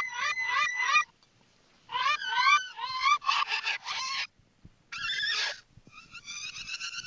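Alien plant sound effect: bursts of rapid chirping squeals, each chirp sliding upward in pitch, with short pauses between bursts. The plant is agitated.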